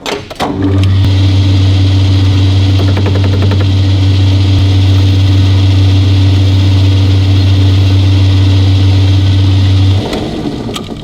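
Metal lathe running while facing off the end of a short steel bar: a loud, steady motor hum with cutting noise on top, which stops abruptly about a second before the end.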